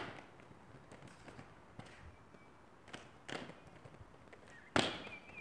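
Quad roller skates with Atom Pulse wheels rolling over paving stones, the wheels clicking a couple of times across the joints about three seconds in, then one loud clack near the end as the skates land a small jump on the pavement.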